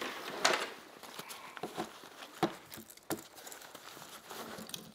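Nylon pack fabric and straps of a Stone Glacier Sky Archer backpack rustling as they are handled and a tripod is worked free from the side straps, with a few sharp clicks and knocks, the loudest about half a second in.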